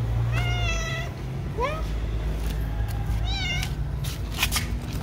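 Cat meowing three times, short calls that each rise in pitch, over a low steady hum.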